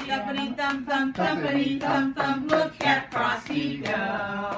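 Recorded Christmas song playing: a pitched melody over a sharp, evenly spaced beat of about three hits a second, between sung lines.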